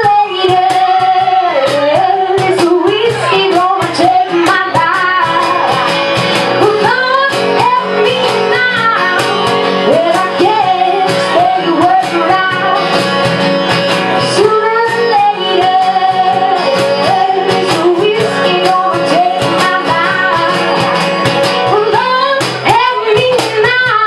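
A woman singing lead over a strummed acoustic guitar in a live performance, her voice sliding between long held notes over a steady strumming rhythm.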